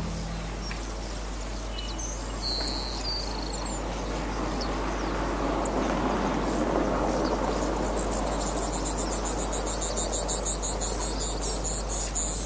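Outdoor ambience: a steady wash of noise that swells in the middle, with a few short high bird chirps early on and a fast, high chirping trill over the last few seconds.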